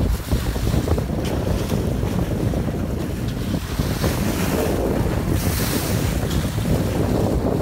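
Wind buffeting the microphone over the rush of sea water along a moving boat's bow. About five and a half seconds in, a louder hiss of splashing water.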